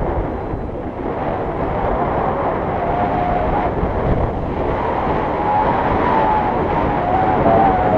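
Wind rushing over a camera microphone on a paraglider in flight: a loud, steady buffeting roar. A faint wavering whistle rises above it from about three seconds in.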